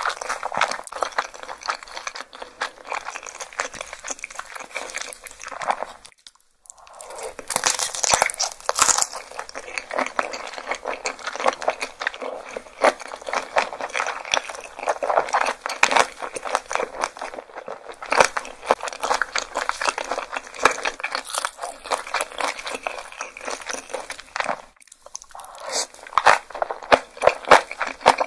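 Close-miked eating: loud, crunchy biting and chewing of crisp food, a dense run of crackling crunches with a brief pause about six seconds in.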